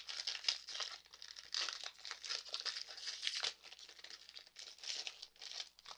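Foil wrapper of a Pokémon Fusion Strike booster pack crinkling in uneven bursts as it is handled and torn open by hand.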